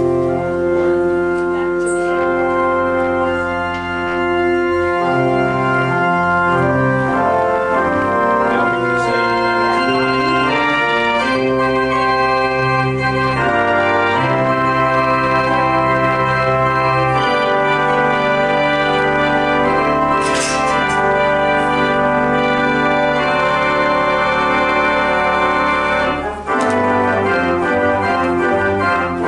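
Church organ playing: full sustained chords over long held bass notes, the harmony moving every second or so, with a brief break in the sound near the end.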